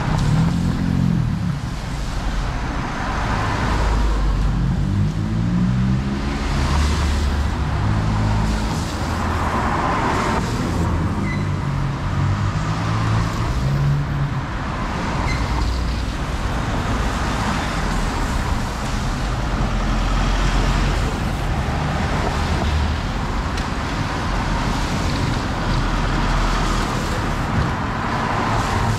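Road traffic: cars passing one after another in repeated swells of tyre and engine noise. For several seconds near the start a vehicle engine's low note rises and falls in pitch.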